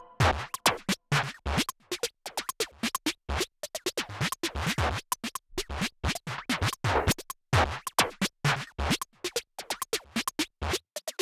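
Background music with a choppy, stop-start electronic beat made of many short hits.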